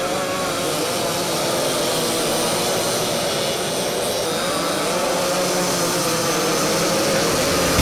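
A pack of dirt racing karts' small engines buzzing together, several pitches rising and falling over one another as the karts run through a turn.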